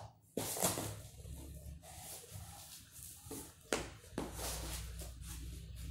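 Cardboard shipping box being opened and rummaged by hand: flaps and packing rustling and scraping, with a sharp knock about half a second in and two more at about four seconds.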